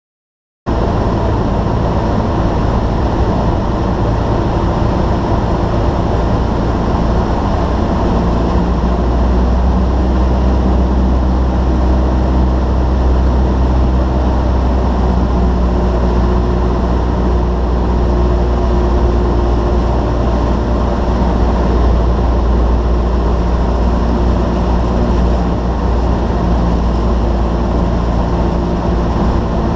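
Cessna 152's four-cylinder Lycoming O-235 engine and propeller droning steadily in flight, heard inside the cockpit with a strong low hum. The sound cuts in abruptly just after the start.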